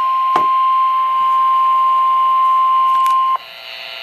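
Weather-radio warning alarm tone: a single steady beep near 1 kHz over radio static with a few clicks, announcing a National Weather Service warning. It cuts off suddenly about three and a half seconds in, leaving radio hiss.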